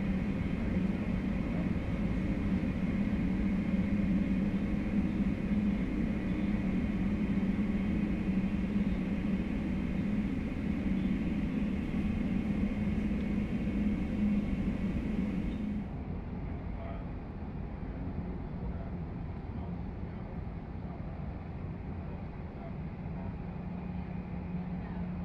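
Steady hum of airliner jet engines running at taxi power. About sixteen seconds in, the sound cuts abruptly to a quieter, duller jet hum from an Airbus A320-family twinjet taxiing.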